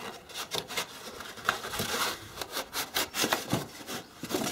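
A polystyrene-like insulation piece being worked free from inside a car's front wing: irregular rubbing and scraping of foam against the panel, in many short strokes.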